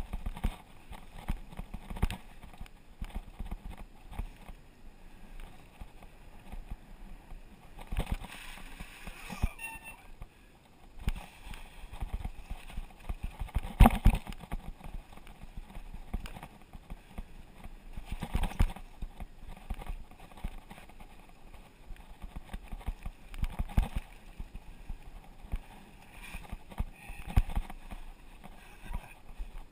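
Mountain bike rattling and knocking over a rough dirt trail, picked up from the handlebars: irregular jolts and clatter, the hardest about halfway through.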